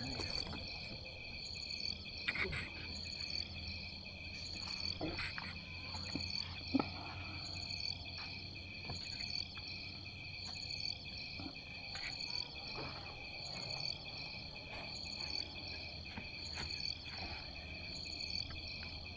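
Insects chirping steadily: a continuous high-pitched trill with a short, higher chirp repeating about every half second, and a few faint knocks.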